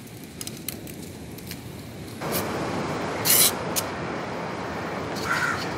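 A knife working bamboo strips: light taps and scrapes, then a short, louder shaving stroke about three seconds in. From about two seconds in there is a steady rushing noise, and a crow caws once near the end.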